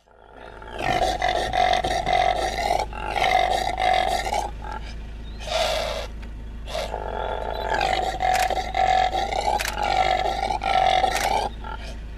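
Impala roaring: a run of loud, hoarse roaring calls, each about a second long, one after another with short breaks between.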